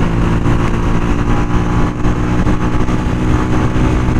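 Honda CG 125 SE's single-cylinder four-stroke engine running steadily at about 80 km/h, with wind rushing over the helmet camera's microphone.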